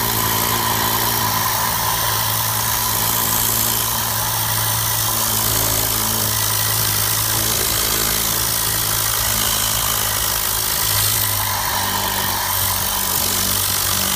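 Tornado-style air-powered cleaning gun blasting compressed air and cleaning solution into car carpet: a loud, steady hiss with a low hum underneath.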